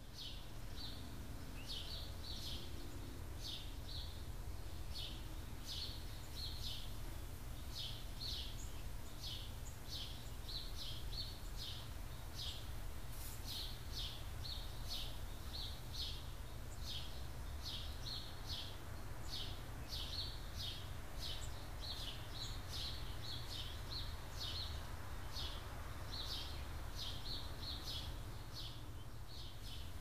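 Small birds chirping: short, high calls one or two a second, irregularly spaced, over a steady low background rumble.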